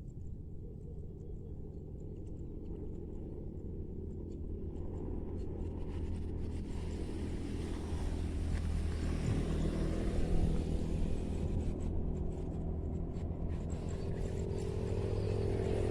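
A motor vehicle's engine approaching, its low rumble growing steadily louder.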